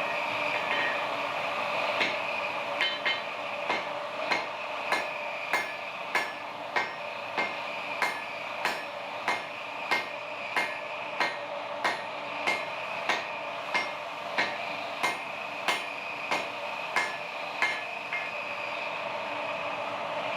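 Hand hammer striking hot jackhammer-bit steel on an anvil in an even rhythm, a little under two blows a second, starting about two seconds in and stopping near the end, over the steady noise of the forge.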